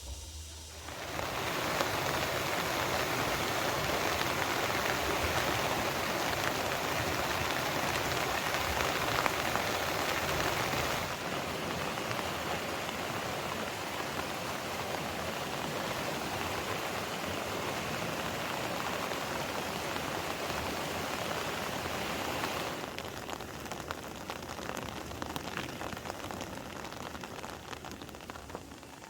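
Heavy rain falling steadily. It starts about a second in and grows lighter over the last few seconds.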